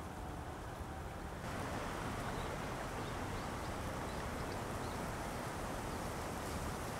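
Outdoor wind ambience: a steady low rush that steps up about a second and a half in to a louder, fuller rustle of wind through dry grass and reeds, with a few faint high calls.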